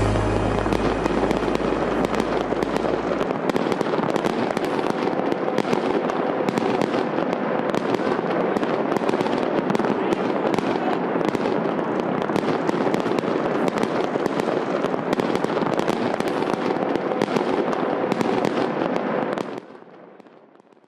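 Fireworks and firecrackers going off all over a city at once: a dense, continuous crackle of countless bangs with no pause. It fades out near the end.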